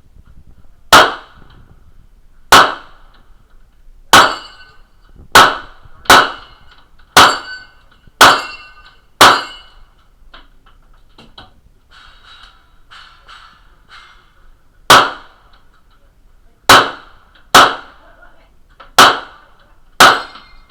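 Thirteen single gunshots from a competition stage run, fired about a second apart. After the eighth shot there is a pause of roughly five seconds before the firing resumes.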